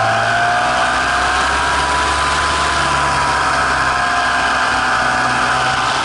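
T28 airplane's propeller and motor heard from an onboard camera: a steady whine that rises in pitch about a second in and eases back down later, over wind rushing past the microphone.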